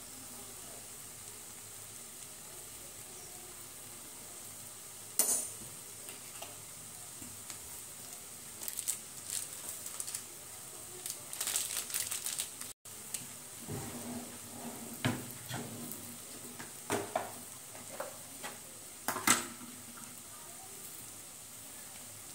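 Chow mein noodles sizzling faintly in a frying pan, with scattered clinks and taps of bottles and utensils as sauce and spices are added over the pan.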